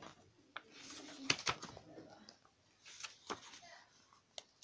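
Pages of a glossy album photobook being handled and turned by hand: paper rustling, with a handful of sharp taps and clicks.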